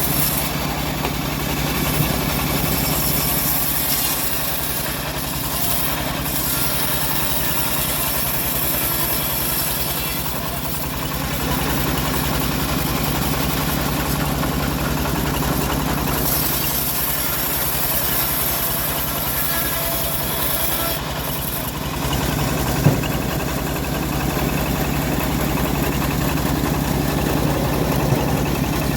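Engine of a homemade bandsaw sawmill running steadily while the mill saws old teak logs. A high hiss rises and falls over the engine drone, and there is one sharp knock late on.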